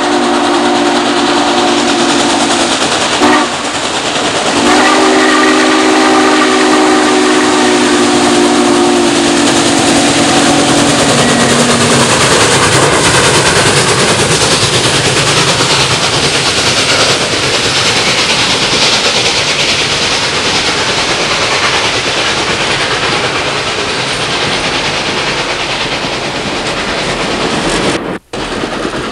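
Norfolk & Western Class J No. 611 steam locomotive blowing its chime whistle: a short blast, then after a brief break a long blast of about seven seconds. After that, the steady rush of the passenger train rolling past, its wheels clicking over the rail joints.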